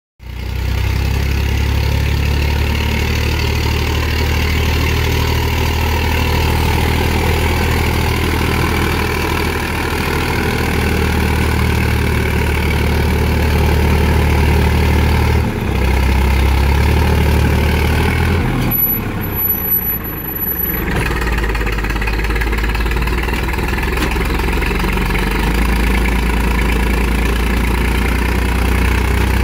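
IMT 533 tractor's three-cylinder diesel engine running steadily, its low note shifting pitch a few times about halfway through.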